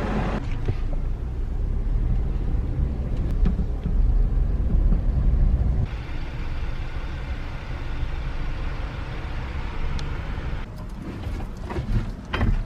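Motor vehicle noise: a steady low rumble of a car running, with a few sharp clicks and knocks near the end.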